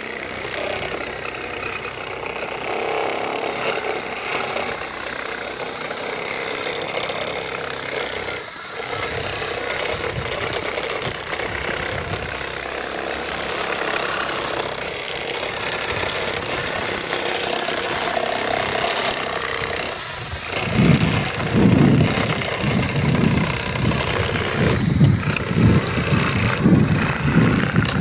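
Radio-controlled Hanomag wheel loader model running: an engine-like drone under a steady hiss. Louder, uneven low rumbling comes in for the last several seconds.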